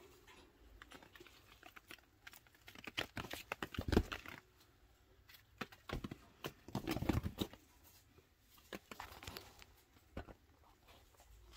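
Baby chinchilla scampering over a paper floor covering: light, quick patter and paper rustling, louder around three to four seconds in and again around seven seconds in.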